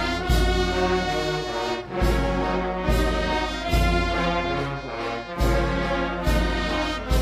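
A slow funeral march played by a brass band, with trombones and trumpets over heavy low beats a little under a second apart.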